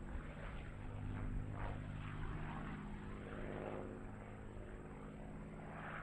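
P-51 Mustang's V-12 piston engine and propeller running in flight through aerobatic manoeuvres, the engine note shifting slightly in pitch.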